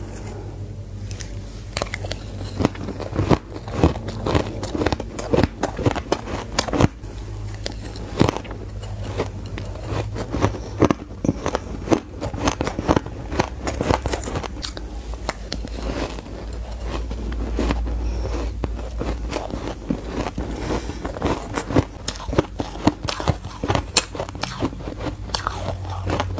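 Close-miked crunching and chewing of shaved ice: dense, irregular sharp crunches throughout as mouthfuls are bitten and chewed.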